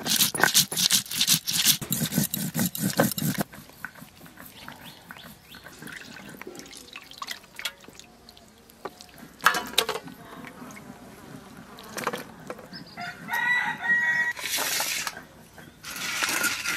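Stone roller crushing whole coriander, cumin seeds and dried red chillies on a flat grinding stone: about three and a half seconds of loud, rough crunching strokes. Then quieter wet squelching and splashing as raw chicken pieces are squeezed and washed in a bowl of water, with a few louder splashes near the end.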